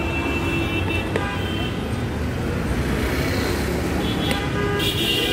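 Busy street traffic rumbling steadily, with vehicle horns sounding: a short high horn at the start and a longer, louder horn near the end. A single click comes about a second in.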